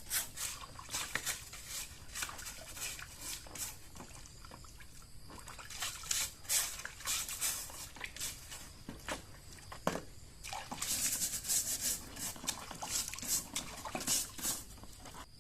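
Irregular clicks and scraping from hand work on parts, with denser runs of scraping about six and eleven seconds in.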